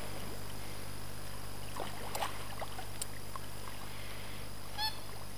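Hooked carp splashing at the pond surface while being played, with a few sharp splashes about two and three seconds in. A short, pitched, bird-like call comes near the end.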